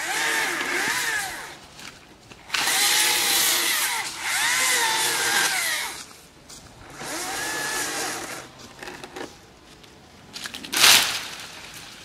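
Chainsaw revving in four bursts of a second or two each, its pitch sagging and rising as it cuts into branches. Near the end comes one short, loud, sharp sound.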